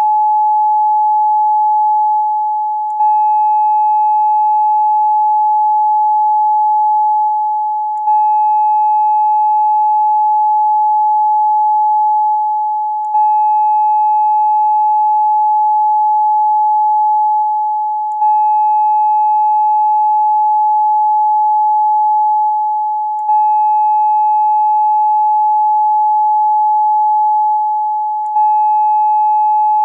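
A steady 852 Hz pure tone used as a chakra meditation frequency. It is a loop that dips in level and restarts about every five seconds.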